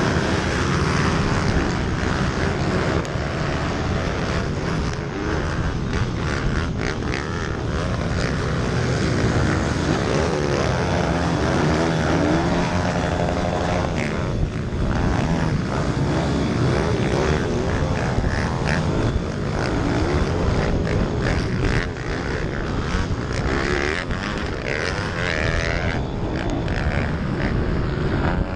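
Minibike engines revving hard as a pack races on a dirt track, heard from the rider's own bike with wind buffeting the microphone; the nearest engine's pitch keeps rising and falling as the rider works the throttle and gears.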